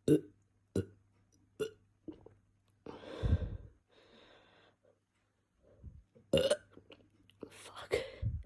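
A person belching from carbonated Coca-Cola: a few short sharp sounds in the first two seconds, a long low burp about three seconds in, and two more loud burps near the end.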